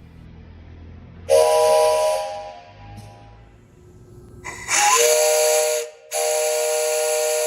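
3D-printed 3-inch six-chime steam whistle replica with a traditional bowl, blown with compressed air. It sounds a higher-pitched chord of several notes over a hiss of escaping air: a short blast about a second in, then after a pause two longer blasts close together, the last one running on.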